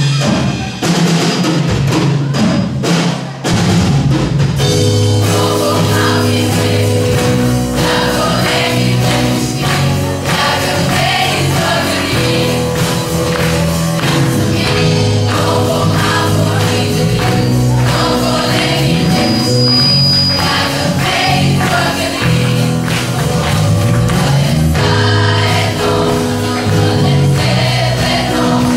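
A large group of schoolchildren singing together over amplified music with drums. The first few seconds are drum hits, and then the massed voices come in.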